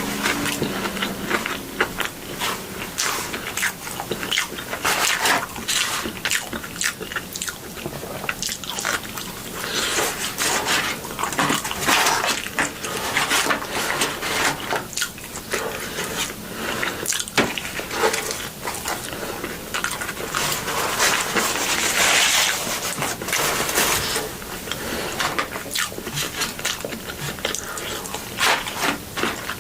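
Close-miked eating sounds: continuous chewing, biting and wet mouth smacking, with many irregular clicks and crunches.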